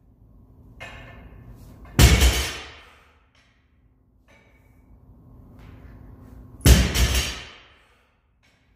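Heavily loaded barbell with rubber bumper plates set down hard on a rubber gym floor at the end of two deadlift reps, about four and a half seconds apart. Each time there is a heavy thud with a short rattle of the plates on the bar.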